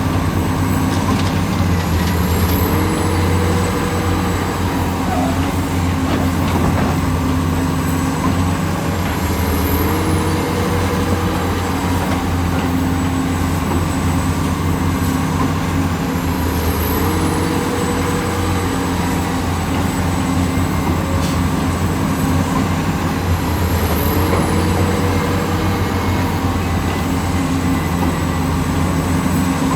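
Heavy construction machine's diesel engine running steadily, with a short shift in pitch that repeats about every seven seconds.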